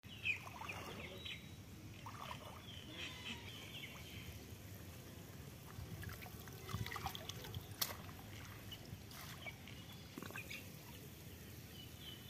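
Shallow muddy pond water sloshing and trickling as a bamboo cage trap is worked into it and hands move through the water, with birds chirping in short repeated notes over the first few seconds. A single sharp knock sounds about eight seconds in.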